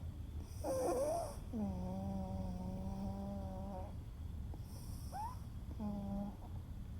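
A sleeping pet snoring in even, humming tones, one held for about two seconds, with a squeaky, wavering breath about half a second in and a brief rising squeak a little after five seconds.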